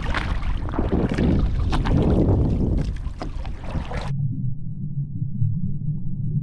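Shallow water sloshing and splashing with wind noise on the microphone. About four seconds in the sound turns abruptly muffled, leaving only a low rumble.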